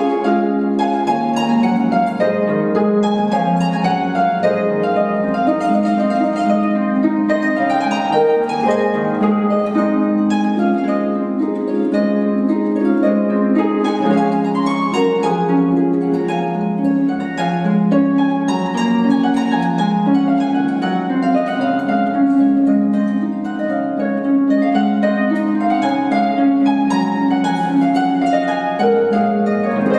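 Concert pedal harp played solo: an unbroken flow of plucked notes, a low accompaniment line under a higher melody that ripples up and down.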